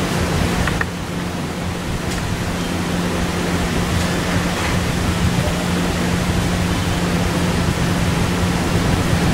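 Steady, loud hiss with a low hum underneath, and a few faint ticks.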